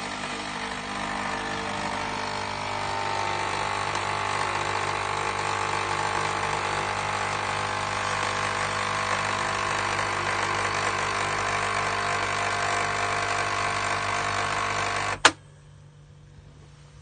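Nescafé Dolce Gusto Mini Me capsule coffee machine running its pump to brew the coffee capsule into a mug of milk froth: a steady mechanical drone with a fast pulsing underneath. It cuts off with a sharp click about fifteen seconds in.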